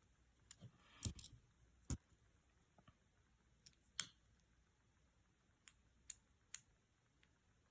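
Scattered small clicks and taps of belt hardware being handled, the buckle, its Chicago screws and the screwdriver, about eight in all, with the loudest about a second in and about four seconds in.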